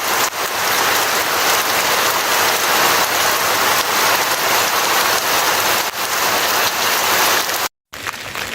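Heavy, steady rain falling, loud and even. It breaks off for a moment near the end and comes back quieter.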